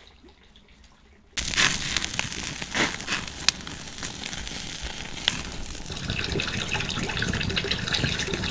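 Wood fire in a metal fire drum crackling loudly, with pieces of wild boar meat sizzling on a wire grill over it and sharp pops from the burning wood. It starts abruptly about a second and a half in.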